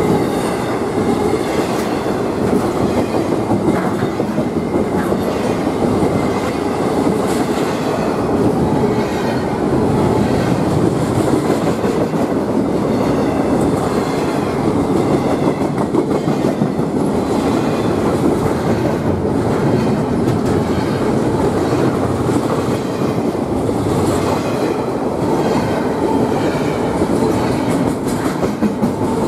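Double-stack intermodal container cars of a freight train rolling past at speed: a steady rumble of steel wheels on rail with clickety-clack over the rail joints.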